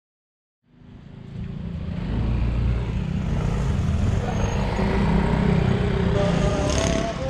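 Road traffic at a railway level crossing: motorcycle engines running as the bikes approach and cross the tracks. The sound fades in about a second in and then holds steady, with a short sharp click near the end.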